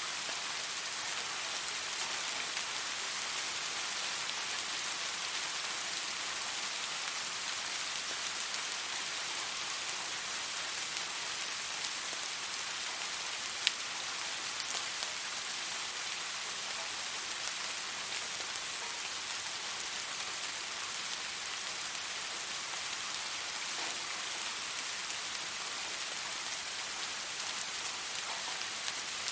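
Steady rain falling on a surface: an even hiss of many drops. A single sharp, louder tick stands out about halfway through.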